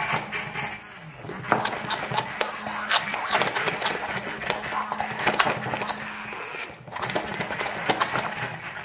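Hand-held immersion blender running in a glass bowl, blending crème anglaise into melted chocolate, with a steady motor hum under the churning of the thick mixture. It stops briefly about seven seconds in, then runs again.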